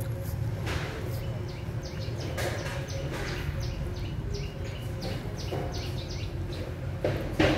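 A litter of puppies suckling at their mother's teats: many small wet clicks and faint squeaks over a steady low hum, with one louder short sound near the end.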